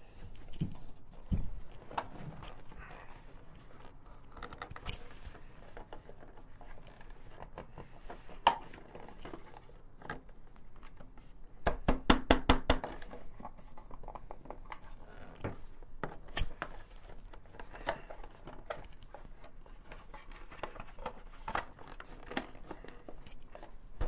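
Plastic side intake panel of a Yamaha FZ-09 being wiggled and pushed into place by hand: scattered rubbing and clicking of plastic against the bodywork, with a quick run of about ten knocks a little before halfway.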